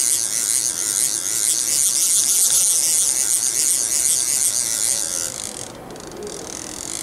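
CNC router's axis drive motors moving the spindle carriage along the X axis at a reduced feed rate: a steady hiss with a faint whine. About five seconds in it turns much quieter and the pitch falls as the feed rate is turned down further.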